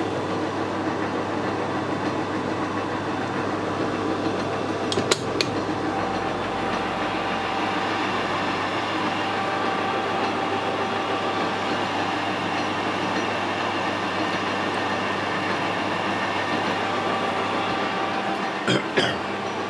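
Metal lathe running while a high-speed steel tool takes a light cut on a steel shaft supported by a travelling steady rest. Steady machine hum, with sharp clicks about five seconds in and again near the end.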